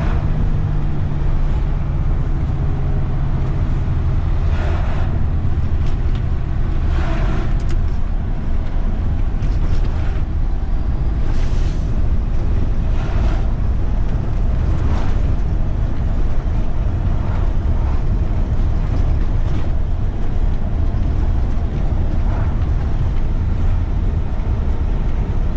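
Heavy truck driving on a highway, heard from inside the cab: a steady low rumble of diesel engine and road noise. A handful of short rattles or knocks from bumps in the road break through now and then.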